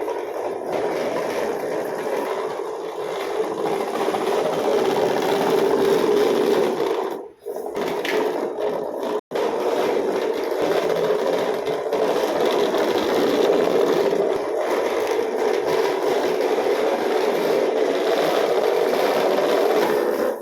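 A small motorized toy running with a steady scraping rattle, cutting out briefly twice, about seven and nine seconds in.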